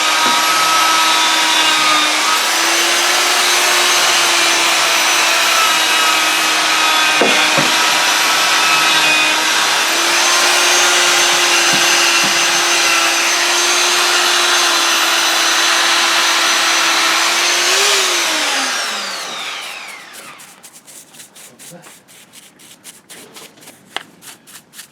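Electric power sander or grinder running steadily at a constant pitch for about eighteen seconds, then switched off and spinning down with a falling pitch. Short, repeated hand-sanding strokes follow near the end.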